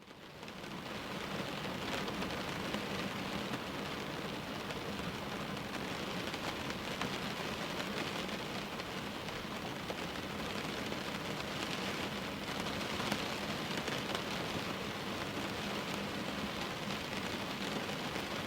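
Steady rain falling, with fine drop ticks on a surface at a window; it fades in over the first second.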